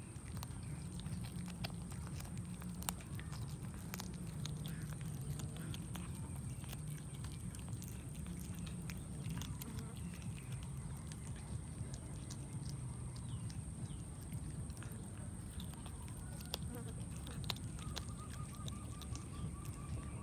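A cat chewing raw fish, with scattered short clicks and smacks of its teeth and mouth over a steady low hum.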